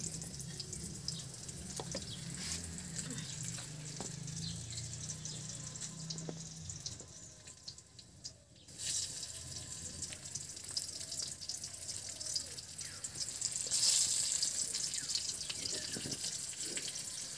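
Twig fire burning in a clay stove under a wok, a steady hiss with many small crackles. It drops out briefly about eight seconds in and grows louder near the end.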